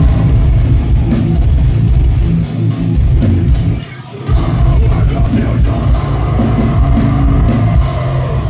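Live deathcore band playing loud, heavy distorted guitars and drum kit. The music drops out briefly about four seconds in, then crashes back in.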